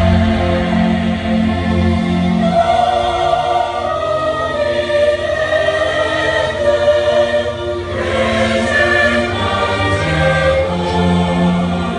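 Live classical music: an orchestra playing with singing voices, long held notes over a low bass line.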